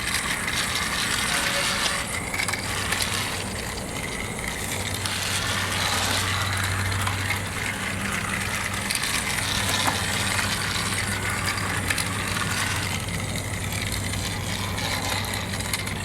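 Battery-powered Trackmaster remote-control Thomas toy engine running along its plastic track: a steady motor-and-gearbox whir with a dense rattle from the wheels and track.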